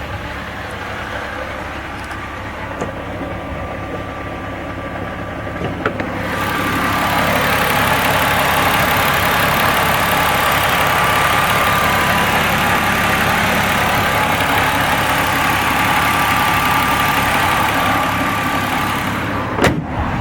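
Car engine running with a loud knocking, which the owner suspects is rod knock. About six seconds in the sound gets louder and harsher, and it holds there until near the end.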